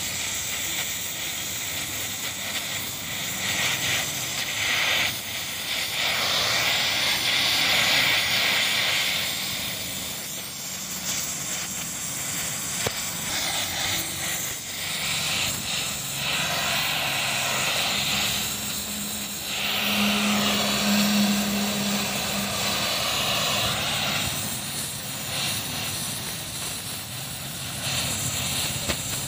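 Gas welding torch flame hissing steadily as it heats a steel shaft and melts in a brass filler rod, growing louder in several stretches.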